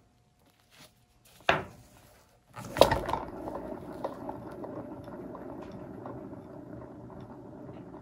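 A paint-pouring spinner turntable knocked into motion and spinning with the wet painted board on it: a short knock, a sharper knock as it starts, then a steady rattling whir that slowly fades.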